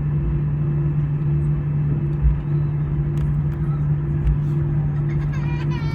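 Airbus A320 cabin noise: a steady, loud drone of the engines and airflow heard from inside the cabin, with a constant low hum.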